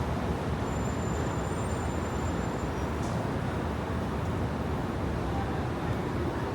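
Steady street traffic noise: a continuous, even hiss and rumble with no distinct events.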